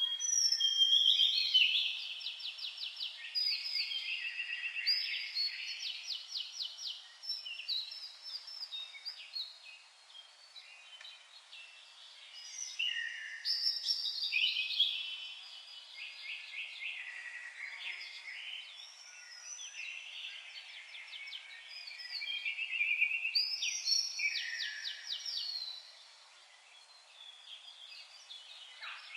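Songbirds singing long, rapid trilling and warbling songs in several bouts, loudest near the start, about halfway through and again past two-thirds.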